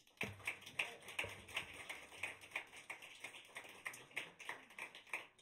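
Light applause from a small audience: a scatter of overlapping hand claps.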